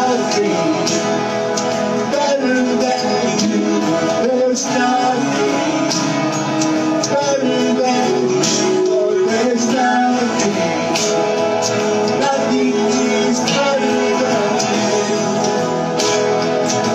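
A live worship band playing a praise song: voices singing over guitar and percussion.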